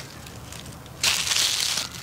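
Crispy batter of deep-fried chicken drumsticks crunching loudly for just under a second, starting about halfway through.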